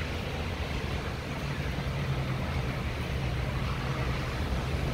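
Steady heavy rain falling, an even hiss with a low steady rumble underneath.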